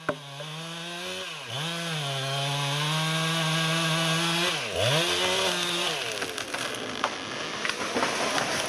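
Two-stroke chainsaw cutting into the base of a standing tree at high revs, its pitch dipping sharply twice. The engine stops about six seconds in, and a run of crackling and snapping follows as the tree breaks and falls through the branches.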